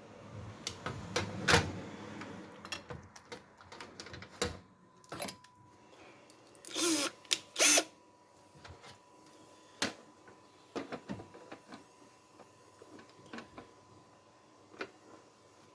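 Scattered clicks, taps and knocks of small hardware being handled, the loudest a pair of clatters about seven seconds in, with a faint steady tone from about five seconds in.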